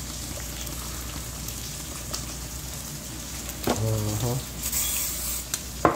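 Eggs frying on a flat griddle with a steady sizzle that briefly grows brighter and louder about five seconds in.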